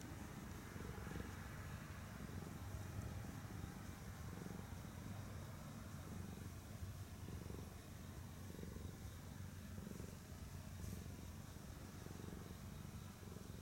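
Domestic cat purring while being stroked on the head: a low, steady purr that swells and fades in a slow rhythm.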